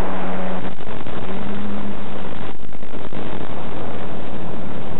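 Loud steady static hiss from the 5.8 GHz analog FPV video link as the signal breaks up, with a faint low hum coming and going in the first two seconds.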